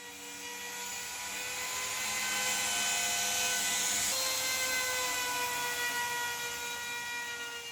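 A woodworking power tool's electric motor running with a steady high whine and hiss, swelling up and then fading away. Its pitch shifts once, about halfway through.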